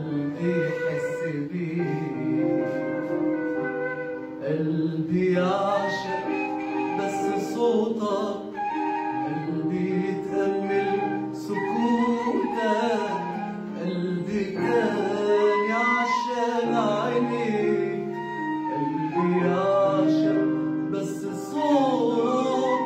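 A man singing an Arabic song with gliding, ornamented vocal lines over instrumental backing.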